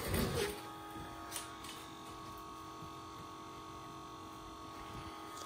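Small electric fuel pump running steadily with a constant hum while it pumps fuel into a model jet's fuel tank. A brief handling knock comes right at the start.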